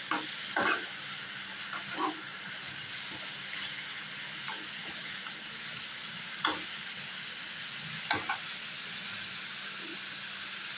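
Sliced bitter gourd and potato sticks sizzling as they fry in oil in a pan, with a spatula scraping and knocking against the pan a few times while they are stirred.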